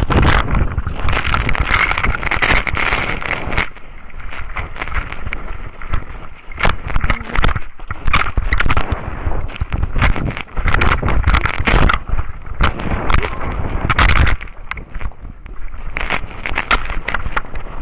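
Wind buffeting and a rapid string of knocks, thuds and scrapes on a body-worn camera as a person tumbles down a snowy, rocky slope. The hits come and go, easing off about four seconds in and again near the end.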